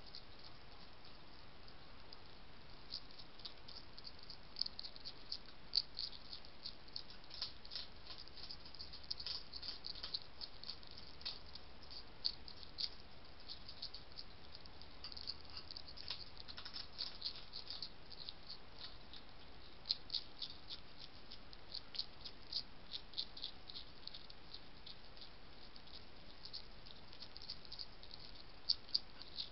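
Wild European hedgehog eating off the ground, a quick, irregular run of small crunching clicks from its chewing, over a steady trail-camera hiss.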